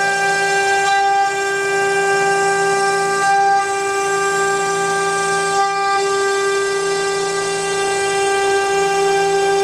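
Spindle of a 3030 mini desktop CNC router running at speed while cutting wood, giving a steady high-pitched whine that holds one pitch.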